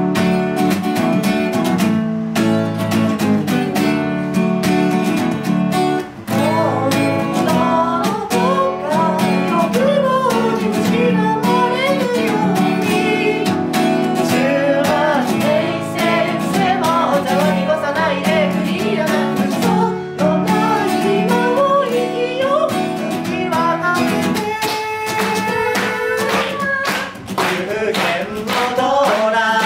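Acoustic guitar strummed steadily, with voices singing a melody over it through the middle. The low strummed chords thin out about three-quarters of the way through.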